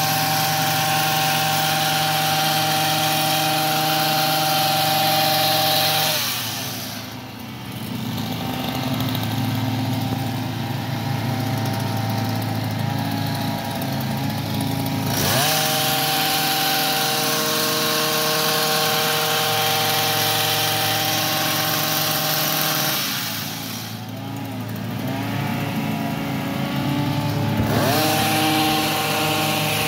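Gas hedge trimmer's two-stroke engine running at high revs, dropping to a lower idle about six seconds in and revving back up about halfway through. It drops again around three quarters of the way through and revs up once more near the end, as the throttle is released and squeezed again.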